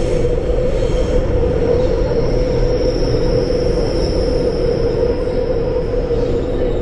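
Seoul Metro Line 2 subway train running, heard from inside the car: a steady loud rumble of wheels on rail with a constant hum. A faint high squeal rises from about two seconds in and fades out a few seconds later.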